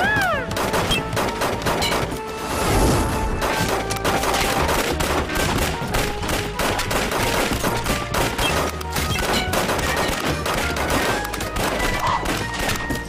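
Rapid volleys of gunfire-like cracks and crashes from a cartoon fight, over dramatic action music, opening with a short falling whistle.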